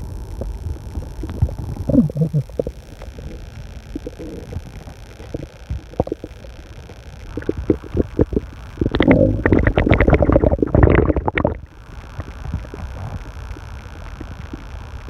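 A person's stomach growling loudly: a short low rumble about two seconds in, a few scattered gurgles, then a long run of rapid gurgling lasting nearly three seconds, over the steady hum of an air conditioner.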